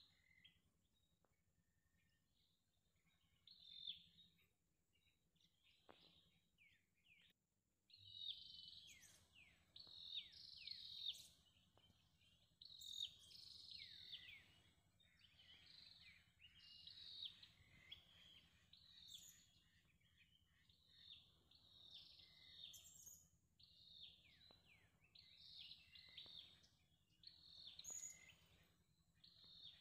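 Birds calling: many short, high chirps that slide downward, few at first and coming thick and fast from about a quarter of the way in. A faint steady high tone runs underneath.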